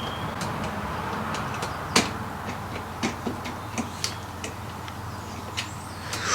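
Workshop build sounds of a mountain bike being assembled: scattered light clicks and knocks of tools and bike parts, with one sharper knock about two seconds in.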